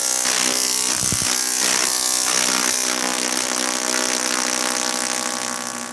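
A large dual resonant solid state Tesla coil (DRSSTC) firing, its sparks giving a loud, steady buzz as they arc to a ladder. The buzz weakens near the end as the arcs shrink.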